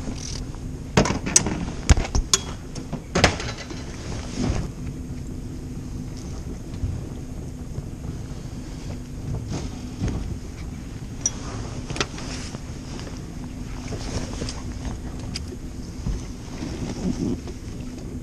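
Boat's outboard motor idling as a steady low hum, with a run of sharp clicks and knocks in the first few seconds as the limb line and hook are handled at the side of the aluminium boat.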